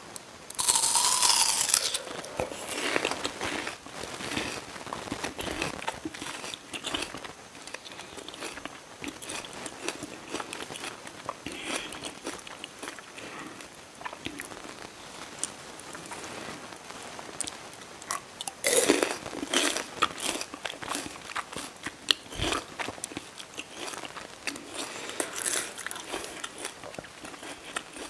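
Close-miked biting and chewing of a sour bilimbi (belimbing wuluh) fruit coated in chili sambal: a loud crunch about a second in, chewing after it, and a second loud crunch about two thirds of the way through.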